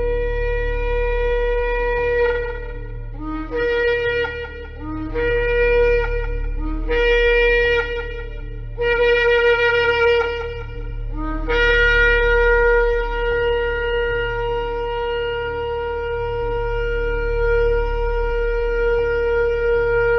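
Shofar (ram's horn) blasts: a held note, then four shorter blasts, each starting on a brief lower note that jumps up, then one long note held for about nine seconds. A steady low hum runs underneath.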